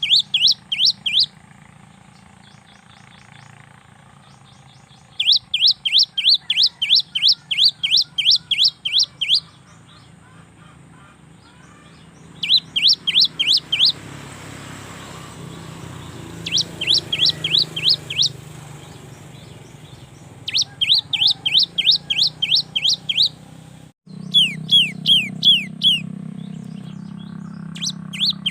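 Cinereous tit (gelatik batu) singing in repeated bouts of quick, clear notes, each falling in pitch, about three a second, with pauses of a few seconds between bouts. A low steady hum runs underneath.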